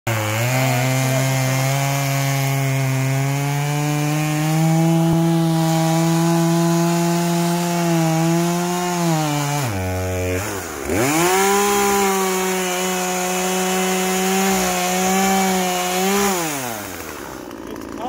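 Chainsaw running at high speed while cutting through a tree trunk. Its pitch drops sharply about halfway through and climbs back, then falls away near the end as the cut finishes.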